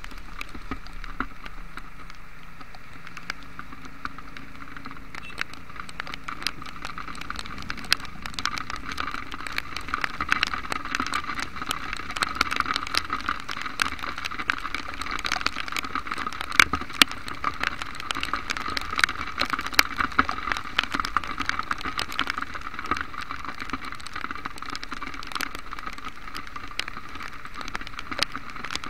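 Heavy rain heard from a moving motorcycle: raindrops tap sharply and irregularly on the camera over a steady hiss of rain and wet road.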